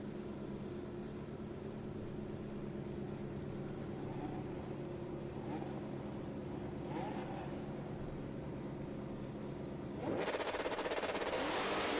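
Drag-race cars, among them a 2014 Ford Mustang, idle steadily in the staging lanes with a few light revs. About ten seconds in they launch at full throttle, and the engine pitch climbs sharply as the cars pull away.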